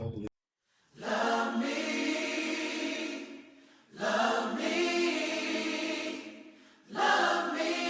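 Choir singing without instruments, in three long held phrases that start about every three seconds after a short silence at the start.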